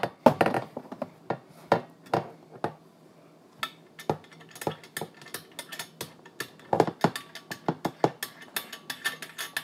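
Trombone's brass parts clicking and clinking as the threaded joint between slide and bell section is unscrewed by hand: irregular sharp metallic clicks, sparser in the middle and coming thicker near the end.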